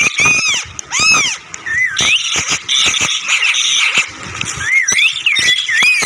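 Caged small parrots calling over one another: repeated up-and-down whistled calls mixed with harsher screeching, a few seconds in.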